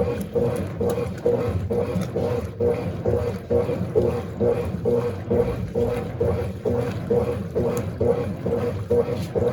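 Mondial BLK20 washing machine churning a load of dark clothes in water, a steady rhythmic sloshing of about two to three pulses a second.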